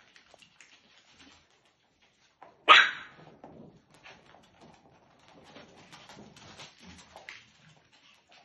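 Maltese puppies playing: one short, sharp puppy yap about three seconds in, with faint scuffling of paws on soft cushions around it.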